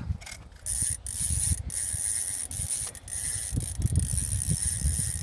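Fishing reel's drag buzzing as a hooked fish pulls line off against it: a steady high-pitched whir that starts about a second in, stutters briefly twice, then runs on, over low wind rumble on the microphone.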